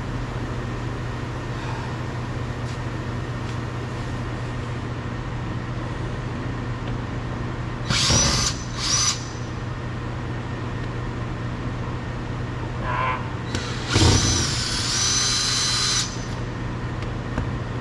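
Cordless drill-driver whirring in short runs as it backs out two Phillips screws from a car door trim panel: two quick spins about eight seconds in, then a longer run of about two seconds some six seconds later, its whine rising as it starts. A steady low hum underlies it throughout.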